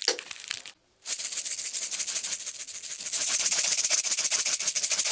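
Close-miked foley rattle: a dense, fast rattling of many tiny clicks, like a shaker. It starts about a second in after a brief pause and grows louder about three seconds in.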